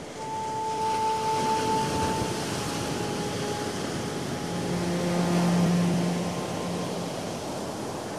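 Steady rushing roar of heavy surf, with long held notes of slow ambient background music over it, including a low note in the middle.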